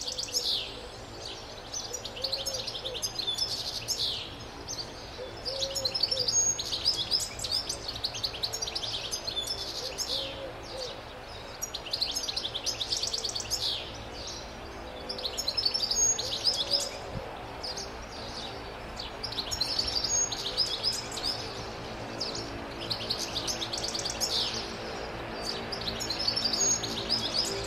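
Wild European goldfinch singing: long runs of rapid, high twittering notes in several bursts, with short pauses between them.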